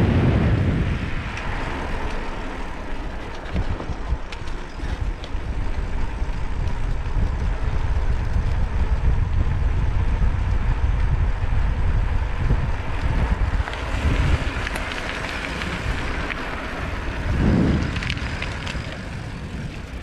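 Wind buffeting the microphone of a chest-mounted action camera while a mountain bike is ridden, a heavy rumbling with occasional short knocks from the bike. The rumble swells briefly near the end.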